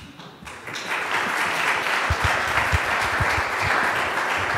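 Audience applauding, swelling in over about the first second and then steady.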